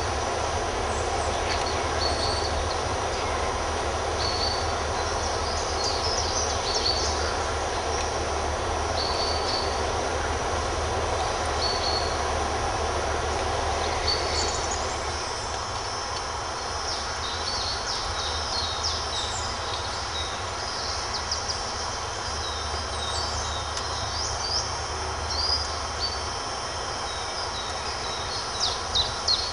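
Woodland songbirds chirping and singing over a steady low rumble of background noise. The birdsong comes thicker in the last few seconds.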